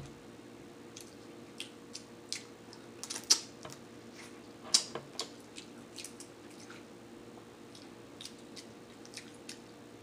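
Cooked snow crab legs being cracked and pulled apart by hand: scattered sharp cracks and clicks of the shell, the loudest a little over three seconds in and again near five seconds.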